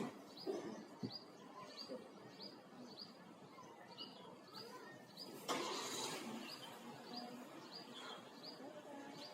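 A small bird chirping over and over, short high notes about twice a second, faint against background noise. A brief rush of noise swells about five and a half seconds in and fades within a second.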